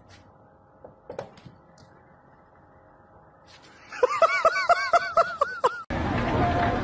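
A quick run of about ten high-pitched laughs, each rising and falling, starting about four seconds in after a few faint clicks. They cut off abruptly into a steady rush of noise.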